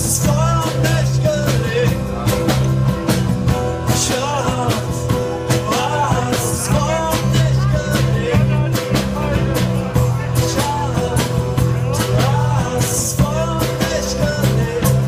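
Live band playing an upbeat rock song: strummed acoustic guitars, electric bass and drum kit, with a melodic line above them and cymbal splashes every few seconds.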